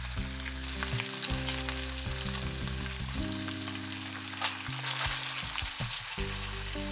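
Pork loin steaks sizzling in a frying pan, a dense crackle with frequent sharp pops, over background music with held low notes.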